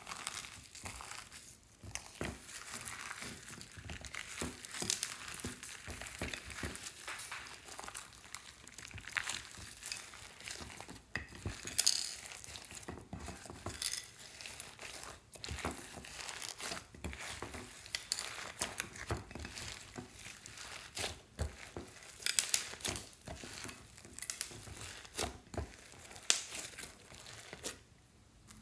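Slime being kneaded and stretched by hand with floam beads and sprinkles mixed in: a dense, irregular run of crackling, popping and squishing, with a few louder sharp pops.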